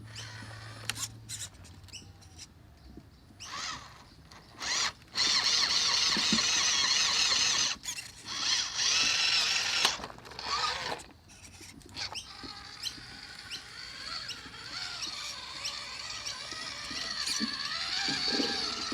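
Small electric motor of a WPL C-44 RC car whining in spurts under throttle, loudest about five to ten seconds in, then running on more steadily. Scattered clicks come in the first few seconds.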